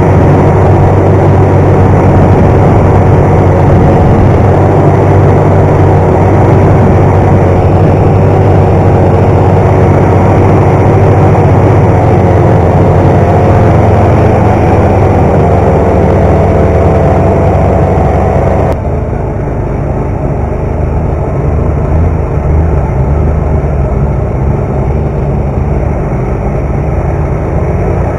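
Snowmobile engine running at a steady speed while riding, with a heavy low rumble that sounds like wind on the microphone. About two-thirds through it cuts suddenly to a quieter, rougher low rumble of engines.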